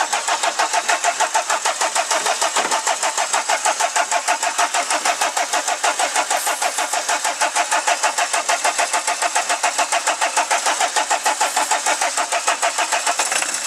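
Peugeot 205 diesel engine cranking over on the starter motor without catching, an even, rapid beat of compression strokes while ether is sprayed into the intake. The owner puts the failure to fire down to air in the fuel system.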